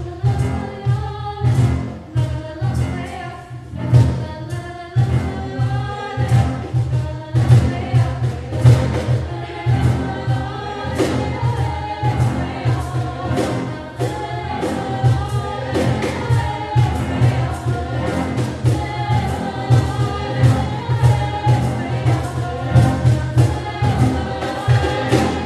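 Background music: a choir singing over a steady percussive beat.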